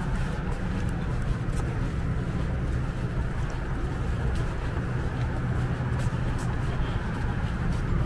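Steady low outdoor rumble, heaviest in the bass, with a few faint scattered ticks.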